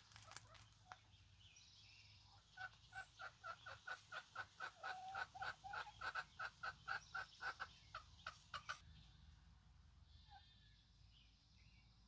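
Chicken clucking in a quick, even run of about four clucks a second that starts a few seconds in and stops about two-thirds of the way through.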